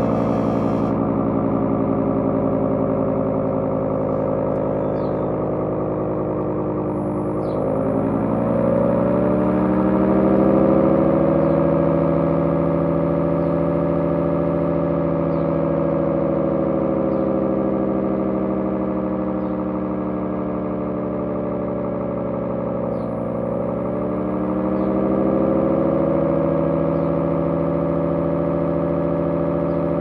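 Electric dual-rotor air raid siren driven by a variable-speed drive, sounding a chord of steady wailing tones. Its pitch sags and climbs back up twice, about a quarter and three quarters in, as the timer pulses it 10 seconds on and 10 seconds off. It never has time to wind down fully before running up again.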